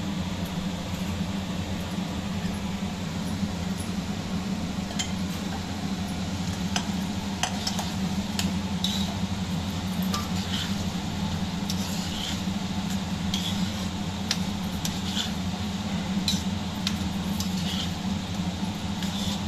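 Steel spoon stirring thick curry in a steel kadai, clinking and scraping against the pan about once a second from about five seconds in, over a steady low hum.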